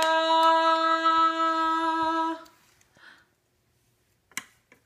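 A voice holding one long sung note at a steady pitch, the last note of a sung fanfare "ba ba da da". It cuts off about two and a half seconds in, followed by a few faint clicks near the end.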